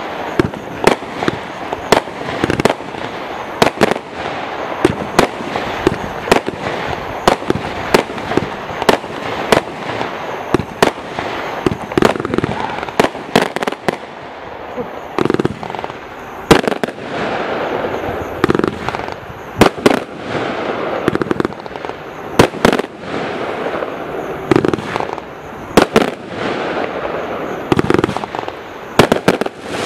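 Total FX Trafalgar combined firework cake firing: a rapid, uneven string of sharp bangs, about one or two a second, with a few deeper booms mixed in. A continuous hiss runs between the bangs.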